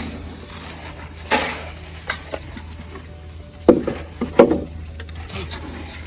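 Dry feed pellets scooped and poured into alpaca food dishes: several short rattling pours and clatters, the loudest near the end, over a steady low hum.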